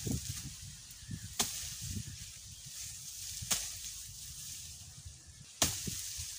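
Tall fodder grass stalks being chopped by hand with a blade: three sharp cracking strikes about two seconds apart, the last one near the end and the loudest.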